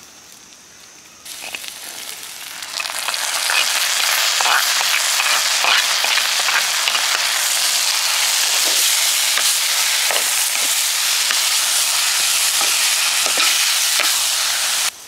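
Boiled tamarind flowers hissing as they are stirred into a frying mix of onions and green chilies in a clay pot, with short scrapes of a wooden spoon. The sizzle comes in about a second in, grows loud and steady, and cuts off sharply near the end.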